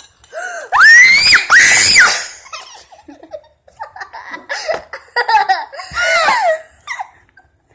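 Children laughing loudly with high-pitched shrieks, in two bouts: one about a second in and another from about five to seven seconds.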